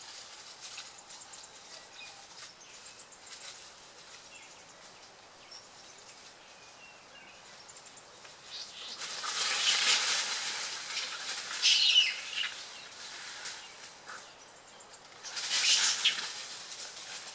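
Birds calling in the forest: a brief high chirp about five seconds in. Two louder swells of rushing noise follow, one lasting several seconds from about nine seconds in and a shorter one near the end.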